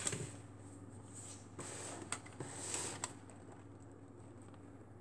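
Handling noise from the camera being moved and pointed down: a rustle at the start, then two short stretches of rustling with a few light clicks about two to three seconds in, over a faint steady hum.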